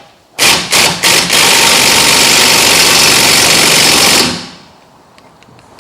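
Impact wrench on a 14 mm suspension-link nut: three short trigger pulls, then about three seconds of continuous hammering that cuts off about four seconds in.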